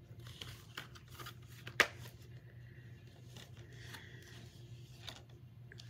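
Plastic DVD and Blu-ray cases being handled, with scattered small clicks and rustles and one sharper click about two seconds in. A steady low hum runs underneath.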